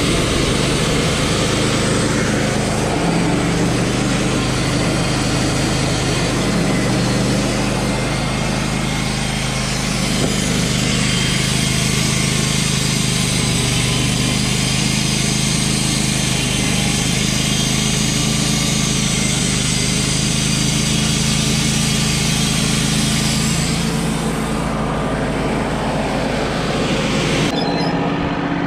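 Wood-Mizer LT35 portable band sawmill sawing lengthwise through a fir log: the engine runs steadily under load under a loud hiss from the band blade cutting. Near the end the high hiss drops away while the engine keeps running.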